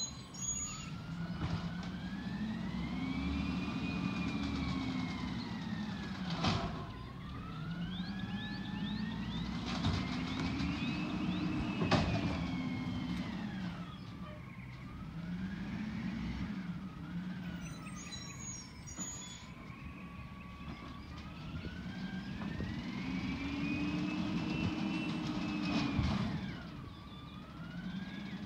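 Emergency vehicle siren wailing, its pitch slowly rising and falling with each sweep lasting several seconds. Two sharp knocks come about a third of the way in and near the middle, the second the loudest sound.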